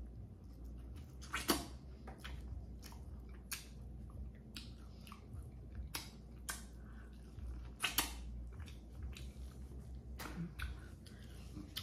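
Chewing and handling of seafood-boil food in sauce: scattered wet clicks and smacks, with two sharper snaps about a second and a half in and about eight seconds in.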